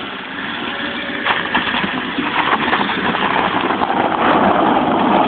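Small hatchback car's engine running hard as it spins in circles on a loose dirt and gravel surface, with the rough noise of tyres and stones, growing louder toward the end.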